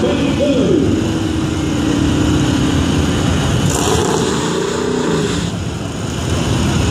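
Chevrolet Camaro SS's L99 6.2-litre V8 and a second car idling at the drag-strip start line, a steady low engine rumble whose pitch swells and falls briefly about four seconds in.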